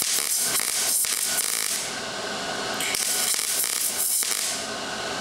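MIG welding arc crackling and hissing in two stretches, with a short lull between them. It is run with the wire speed set too slow, so the wire burns back toward the torch.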